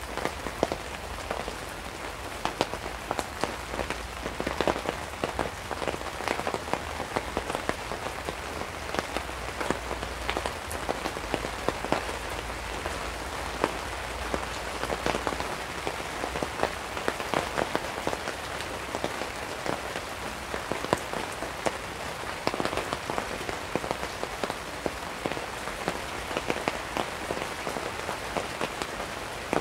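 Heavy rain falling on a tarp overhead: a steady hiss packed with many close, sharp drop hits.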